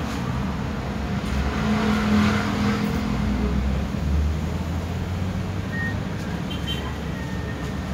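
Steady low rumble of road traffic, swelling briefly about two seconds in as a vehicle passes, with a few faint short high tones in the second half.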